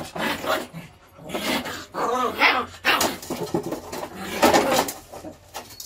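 A young German shepherd and a puppy scuffling, with dog whines and yelps in several short bursts, typical of the two dogs sorting out which one is dominant.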